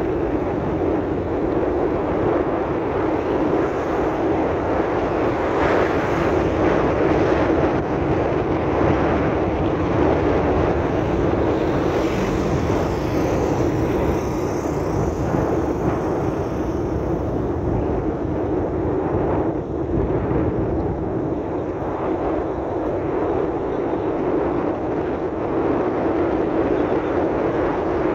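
Steady noise of a vehicle driving along a dirt road: engine and tyre rumble, continuous and unbroken.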